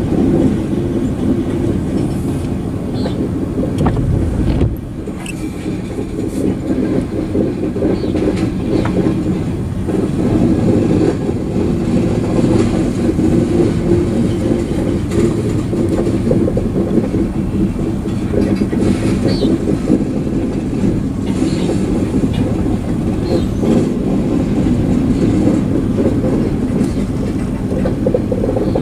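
Freight train covered hopper cars rolling past close by: a continuous rumble of steel wheels on rail, with clicks as the wheels cross rail joints.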